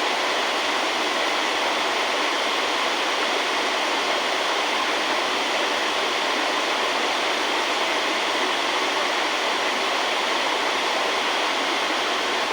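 Steady rushing water, an even, unbroken hiss with no change.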